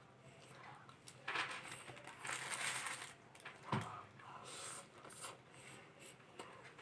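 Close-up eating sounds: several short bursts of crunching and rustling as the food is chewed and handled, with a sharp click a little under four seconds in.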